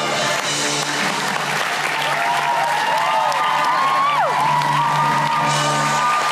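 Theatre audience applauding over the show's band playing held notes, with a quick falling slide of pitch about four seconds in; the clapping is heaviest at the start and again near the end.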